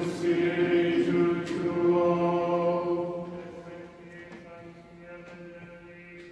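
Choir chanting sacred music in long held notes, several voices in harmony over a steady low note. About three seconds in it fades, and the notes ring on softly in the church.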